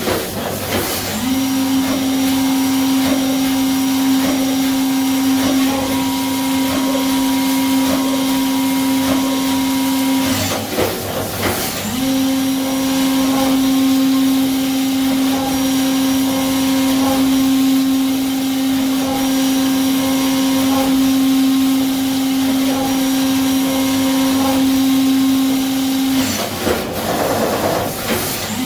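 CNC mill machining parts held on a 4th-axis rotary: a steady pitched hum of the spindle and cutter, broken three times by a brief burst of noise, once at the start, once about ten seconds in and once near the end.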